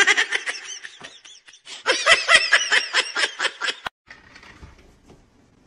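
A person laughing hard in rapid repeated bursts, loudest in the middle; it stops abruptly about four seconds in, leaving only faint background sound.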